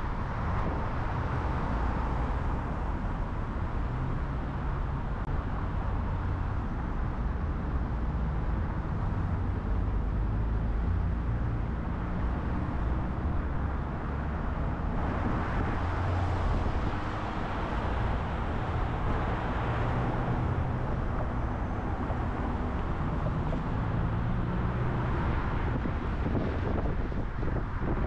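A car travelling at highway speed: steady tyre and road roar with a low engine hum and wind noise, swelling gently a few times.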